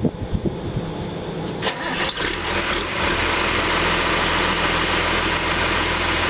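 John Deere 710D backhoe's diesel engine starting: it catches about two seconds in and settles into a steady idle.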